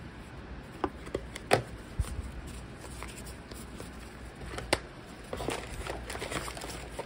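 Board game pieces being handled: thick cardboard tokens in a plastic zip bag and a cardboard sheet. A few sharp clicks and taps in the first two seconds and another about halfway through, then soft scraping and rustling as the sheet is drawn out of the box.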